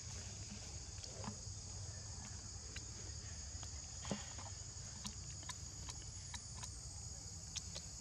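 Steady high-pitched insect chorus, with a low rumble underneath and scattered small clicks and taps, the clearest about halfway through.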